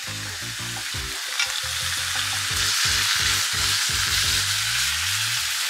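Sliced raw beef sizzling as it hits a hot frying pan and is spread out with chopsticks; the sizzle builds and is loudest around the middle.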